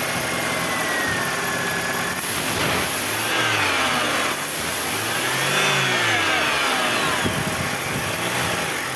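BMW E90 engine running, then revved twice, the pitch rising and falling each time, the second rev longer. The electronic throttle is opening in response to the accelerator pedal, showing the repaired pedal position sensor now works.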